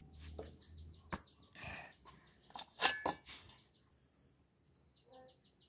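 Steel angle iron knocking and clinking as it is handled on a wooden work surface: a few sharp knocks, the loudest a little under three seconds in with a short metallic ring. About four seconds in, a rapid high chirping trill from a bird.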